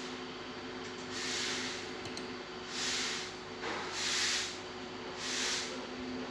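Breathing close to the microphone: four airy puffs, about one every second and a half, over a faint steady hum.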